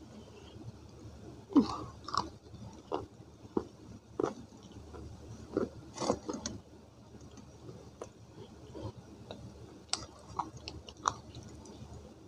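Dry baked multani mitti (fuller's earth clay) crunching, bitten and chewed and snapped apart by fingers on a steel plate close to the microphone. Irregular sharp crackles and snaps, the loudest about a second and a half in.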